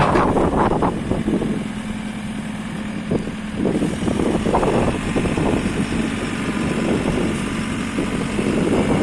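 JCB 3CX backhoe loader's four-cylinder diesel engine running with a steady hum, with irregular clunks and rattles from the machine coming and going over it.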